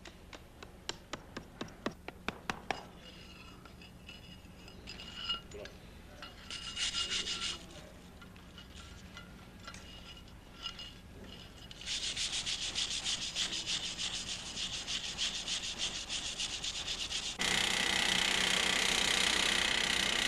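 Metal finishing work: a run of sharp taps and knocks, then short scraping bursts, then fast rhythmic rasping strokes. About three quarters of the way through, a louder, steady grinding takes over.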